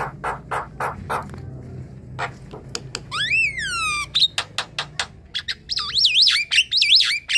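Javan myna singing: harsh rasping notes and clicks, a loud whistle that rises and then falls about three seconds in, and a run of quick up-and-down warbling whistles near the end.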